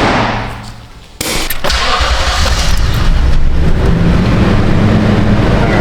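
A sudden bang, then about a second in the 4.6-litre V8 of a 2015 Toyota Tundra comes up and runs steadily.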